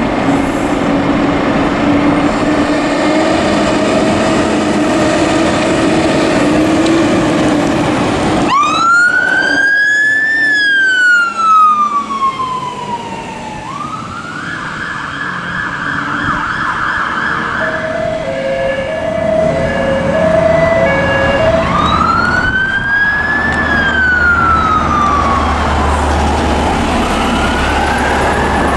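Fire engine sirens. About eight seconds in, a wail starts suddenly and rises and falls. It is followed by a steady warbling tone, a short run of two alternating notes, and two more rising-and-falling wails. A low diesel truck engine rumble sits beneath the later sirens.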